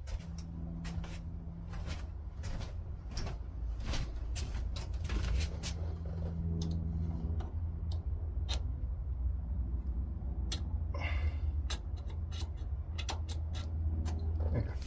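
Small metal tool clicking and scraping against a carburettor fuel-mixture thumb screw, scratching a reference mark onto it, over a steady low hum.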